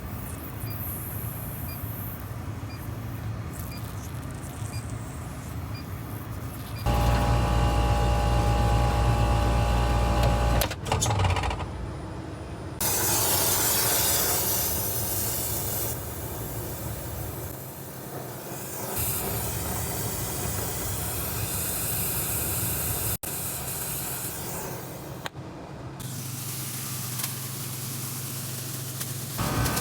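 Loud hissing in several stretches, alternating with a steady machine hum with a few sharp breaks.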